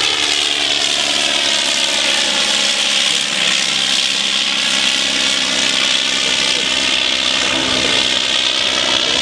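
Blériot XI monoplane's 50-horsepower rotary engine and propeller running steadily at full power in flight, with no throttle, only the ignition to control it. Its pitch sags about three seconds in and climbs back toward the end.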